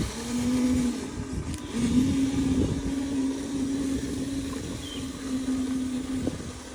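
Small electric motor of a radio-controlled model whining at a nearly steady pitch, stepping slightly up and down, over an irregular low rumble.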